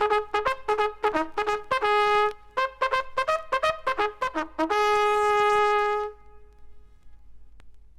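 Japanese military bugle playing a call: a quick run of short notes, ending on one long held note that stops about six seconds in. After it, only vinyl record surface noise with a few faint clicks.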